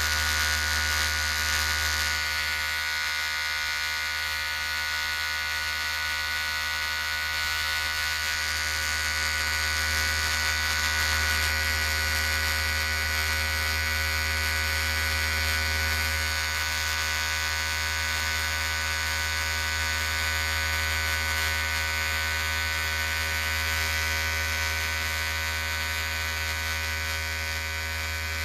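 Electric hair clippers running continuously with a steady buzz.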